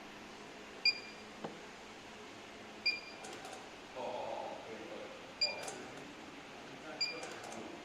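Wire stripping and crimping machine cycling: a short high electronic beep about every two seconds, each followed by quick mechanical clicks and clacks.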